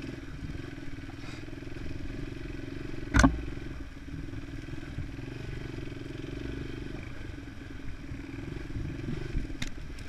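Small dirt bike engine running steadily at riding speed, heard from the bike itself on a rough trail, with one sharp knock about three seconds in and a lighter click near the end.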